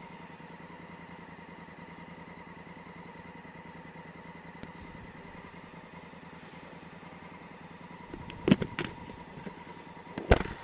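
Honda Africa Twin CRF1000L's parallel-twin engine idling in stopped traffic, a low steady drone with a thin steady whine over it. A few loud knocks cut in near the end: two or three close together, then one more about two seconds later.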